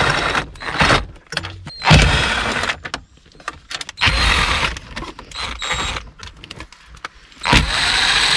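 Quarter-inch ratchet with a 10 mm socket clicking as dash bolts are backed out, in several bursts of about a second with short pauses between.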